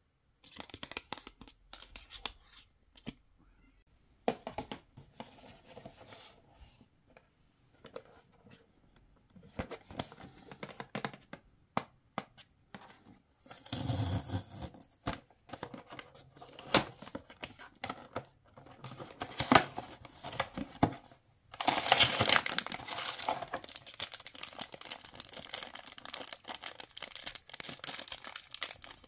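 Hands handling blind-box packaging: scattered taps and rustles of a card and cardboard box, a loud burst as the cardboard box is torn open about halfway through, then continuous crinkling of a clear plastic wrapper being peeled off a small toy figure near the end.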